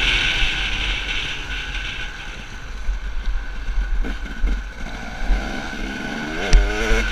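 Dirt bike engine running as the bike rides a dirt track, with wind buffeting the microphone. About six and a half seconds in, the engine revs up and there is a sharp knock.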